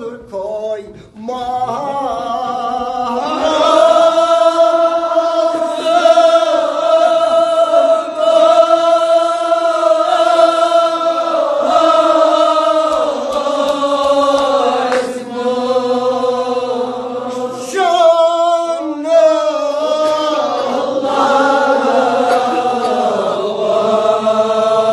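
A group of men chanting a Kashmiri marsiya, a mourning elegy for the martyrs of Karbala, in unison and without instruments, on long held notes.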